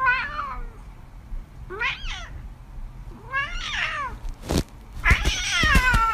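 Domestic cat meowing four times, the last call the longest and drawn out. A few sharp knocks come just before and during that last call.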